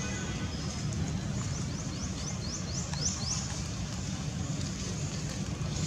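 Outdoor ambience: a steady low rumble, with a quick run of about eight short, high, falling chirps from about one and a half to three seconds in, typical of a bird.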